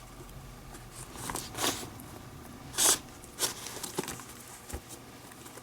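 A leather lace being pulled through the lacing holes of a Rawlings Gamer baseball glove, heard as several short rasping swishes of leather on leather, with a couple of light clicks near the end.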